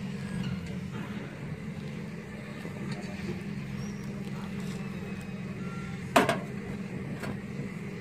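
A steady low drone, with one sharp knock about six seconds in and a fainter click about a second later.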